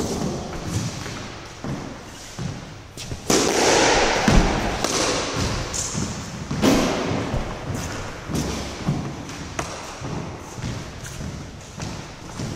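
Squash rally: the ball is struck by rackets and hits the court walls, sharp knocks at irregular intervals. A louder burst of noise comes about three seconds in, and another shortly after six seconds.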